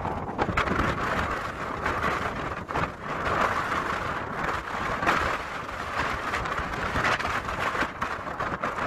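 Storm surf breaking and washing over shoreline rocks, a continuous rushing wash that surges now and then, with wind gusting on the microphone.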